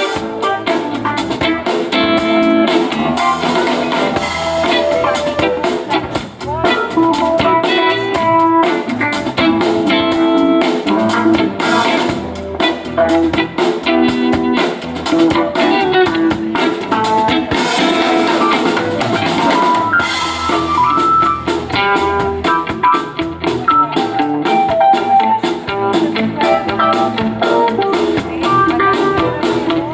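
A band's sound check: guitar and drum kit playing, with steady, rapid cymbal strokes.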